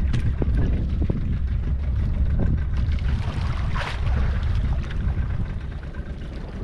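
Wind buffeting the microphone aboard a boat at sea: a steady low rumble with a few light knocks and a brief louder gust a little past the middle.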